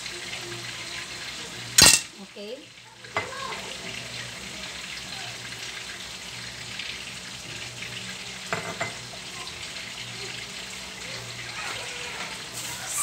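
Pork chop frying in a pan with a steady sizzle. A sharp knock comes about two seconds in, and a couple of light clinks follow later.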